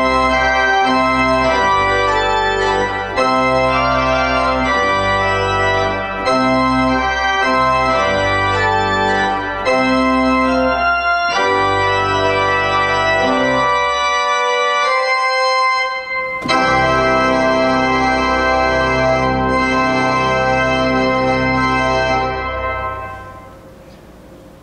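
Three-manual organ played with nearly every stop drawn and no tremolo: a short chorale in full, loud sustained chords over a pedal bass, the chords changing about every second. The bass drops out for about two seconds past the middle, and near the end the final chord is released and dies away.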